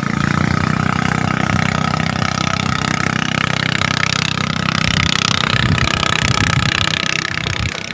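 A small engine running steadily, with an even hiss over it. It eases off slightly near the end.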